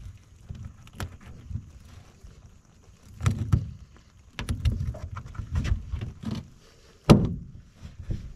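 Irregular knocks and bumps over a low rumble, with one sharp knock about seven seconds in.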